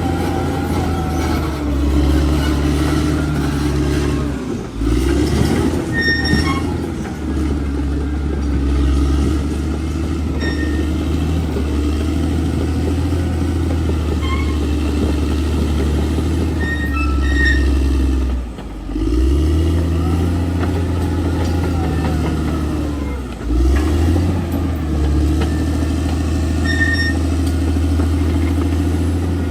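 Bulldozer's diesel engine running steadily under load, its note dipping briefly and climbing back three times, about five, nineteen and twenty-four seconds in.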